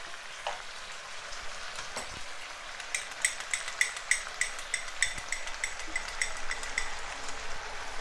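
Brown stew fish and vegetables sizzling in a frying pan, with a steady hiss and a couple of soft spatula knocks in the first two seconds; from about three seconds in, quick crackling pops come several times a second.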